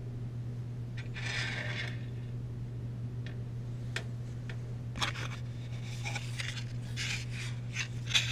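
Steel bolts being slid and set down on a metal surface: a scrape about a second in, a few sharp clinks, then a quick run of scraping and clinking near the end, over a steady low hum.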